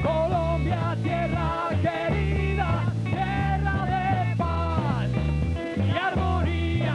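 Rock band playing live: male voices singing over electric guitar, a bass line and drums.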